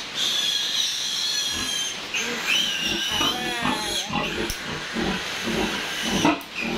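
Newborn piglet squealing continuously with a high, wavering pitch while it is held and its needle teeth are clipped. A sharp click comes near the end.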